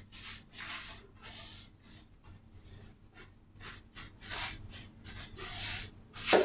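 Rubbing, swishing strokes of wet paint being spread onto a wooden nightstand during its first coat, about two to three uneven strokes a second, with a louder, sharper scrape right at the end.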